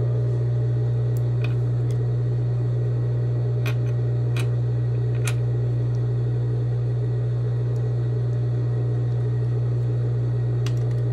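Steady low electric hum of an industrial sewing machine's motor running idle, with a handful of light metallic clicks as a bobbin and its bobbin case are handled.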